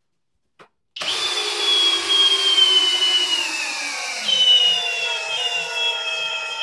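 Flex cordless drill in low speed, drill mode, starting about a second in and whining steadily as it drives a large lag screw without a pilot hole into a timber. Its pitch slowly falls as the screw bites deeper and the load rises, with a brief lift partway through.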